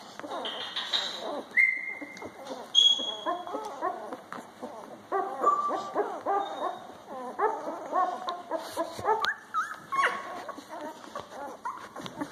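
A litter of newborn puppies whimpering and squeaking as they nurse. The hungry pups give many short, overlapping cries that bend up and down in pitch, and the cries get busier in the second half.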